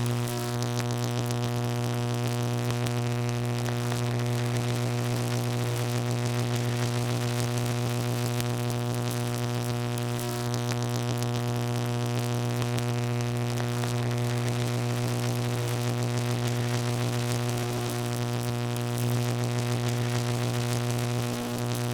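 Steady electrical buzz: a deep, unchanging hum with a stack of higher overtones and a hiss over it, like high-voltage equipment humming.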